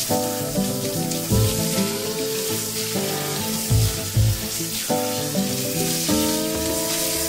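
Handheld shower head spraying water onto a dog's wet coat, a steady hiss, while the conditioner is rinsed out. Background music with chords and a low bass beat plays over it.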